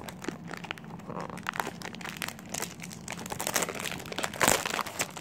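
Cellophane wrap being peeled and crumpled off a perfume box: a dense run of crinkles and crackles, loudest about four and a half seconds in.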